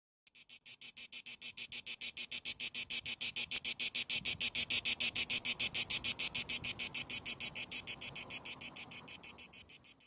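Cicada song: a high-pitched, rapidly pulsing buzz at about eight pulses a second that swells to a peak midway and then fades away.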